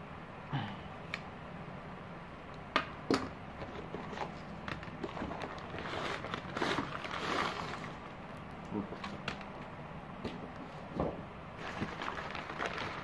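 A taped cardboard shipping box cut open with a small knife and its flap pulled back, then a paper-and-plastic-wrapped parcel lifted out and handled: scattered sharp clicks and scrapes, with a stretch of rustling in the middle and more crinkling near the end.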